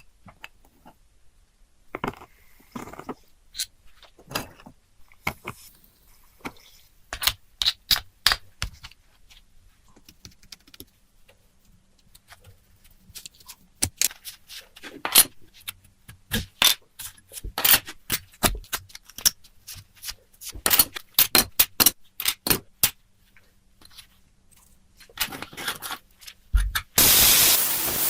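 Irregular clicks, taps and short scrapes of hand tools on small hard parts being worked on, then a loud, steady spray hiss that starts suddenly near the end.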